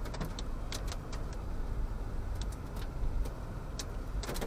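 Car cabin while driving in heavy rain: a steady low road and engine rumble, with scattered sharp ticks of raindrops striking the roof and glass.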